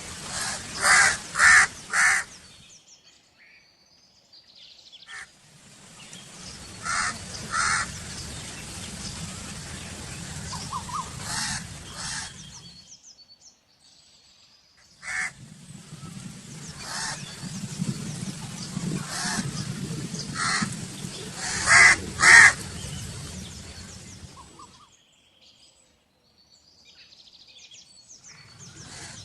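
Crows cawing: short, harsh caws in groups of two or three, several times over, above a steady outdoor background. The sound drops to near silence twice, between sections of the recording.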